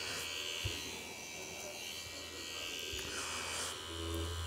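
Tattoo machine with a cartridge needle buzzing in short spells over a steady low hum while pulling a line on practice skin.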